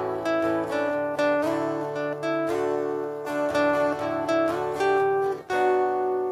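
Acoustic guitar playing a song's melody over chords, a new note plucked about every half second.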